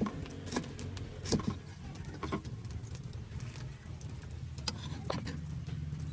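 Kitchen knife cutting chilies on a wooden cutting board: a few sharp taps of the blade on the wood at uneven intervals, over a steady low hum.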